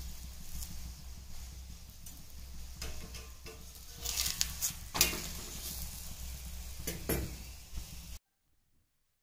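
Paratha sizzling on an iron tawa, with a metal spatula and tongs scraping and knocking against the pan several times over a steady low hum. The sound cuts off suddenly about eight seconds in.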